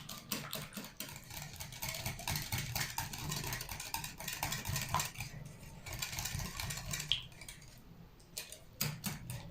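Cake batter being stirred by hand in a bowl to mix in lemon zest, the utensil knocking against the bowl a few times a second; the stirring eases off about halfway through, with a few more knocks near the end.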